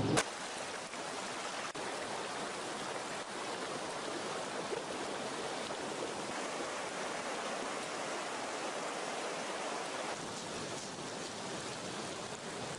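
Steady rushing of water, a constant even hiss like a swollen, flooding river. A sharp click comes right at the start.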